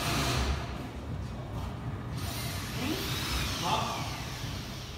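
Motorised stage of an X-ray inspection machine moving the board under the beam: a steady hiss for the first two seconds, then a motor whine that rises and falls in pitch about three seconds in.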